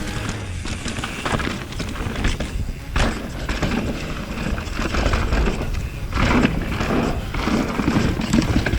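2020 Pivot Switchblade full-suspension mountain bike rattling over technical rocks, with irregular knocks and thuds from the tyres and frame striking rock.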